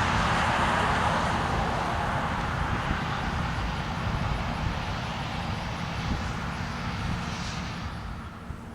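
Rumble of a passing vehicle, fading away steadily over several seconds.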